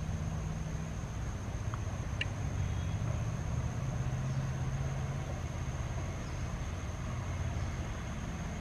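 Low, steady rumble of an ALCO WDG-3A diesel locomotive approaching out of sight, with a steady high insect buzz over it. A single short chirp sounds about two seconds in.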